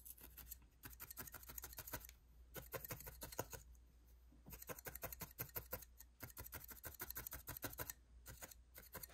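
Felting needle stabbing quickly and repeatedly into a small ball of core wool on a foam pad, shaping the wool. Fast, even pokes come in runs of one to two seconds with short pauses between.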